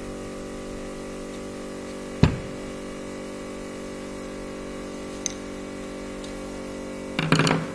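Tool and handling noise on a brushless motor's metal housing as the screws of its fan end cover are worked loose with a screwdriver: one sharp knock about two seconds in, a faint click in the middle, and a short clatter near the end, over a steady hum.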